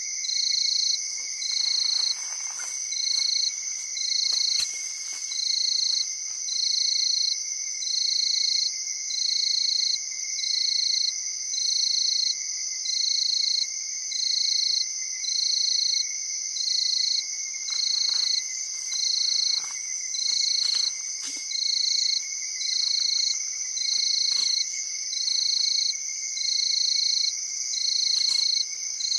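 Night chorus of tropical forest insects: steady high-pitched trilling with one loud call pulsing about once a second. A few faint scattered rustles sound through it.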